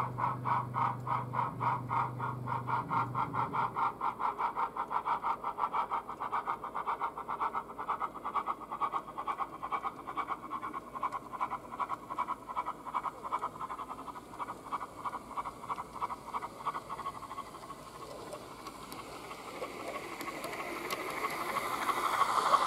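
O gauge model A1x Terrier steam tank engine chuffing steadily at about four beats a second, fading out over the middle. The train then runs past close by, getting louder near the end.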